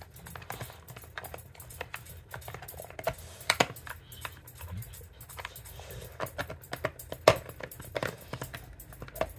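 Dog nosing and pushing at a plastic treat-puzzle toy, its sliding and rotating covers clicking and clattering irregularly, with a couple of louder knocks a few seconds apart.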